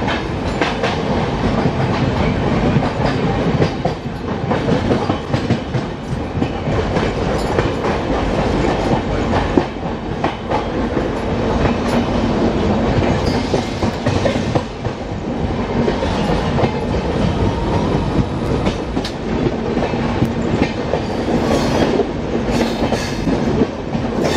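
Rhythmic clickety-clack of LHB passenger-coach wheels running over rail joints, with a steady rumble and hiss of the moving train, heard loud from aboard. Another train passes alongside at the start.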